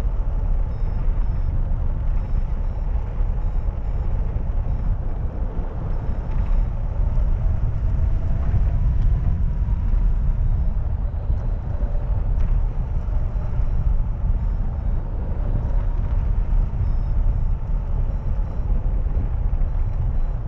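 Wind rushing over the microphone of a camera mounted on a hang glider in flight: a steady low rumble of airflow that never lets up.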